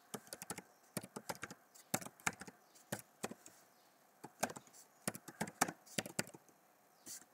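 Computer keyboard being typed on: quick runs of key clicks with short pauses between them.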